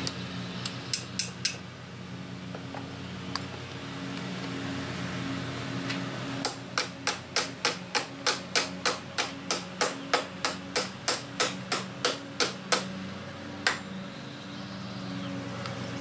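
Hand tool working metal battery terminal clamps onto the posts of a lead-acid battery: a few sharp metallic clicks near the start, then a fast even run of about twenty sharp clicks, three to four a second, for about six seconds, with one more click near the end.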